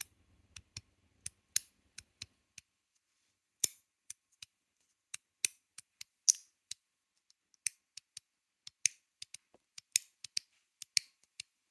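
GD EDC Samsara 2.0 aluminium magnetic slider fidget being slid back and forth up close, snapping into place with an irregular run of sharp metallic clicks, some in quick pairs.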